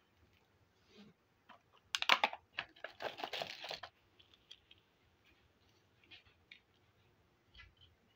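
Small plastic toys handled and set down on a tabletop: a quick run of sharp clicks about two seconds in, a rustling clatter for about a second after, then a few faint taps.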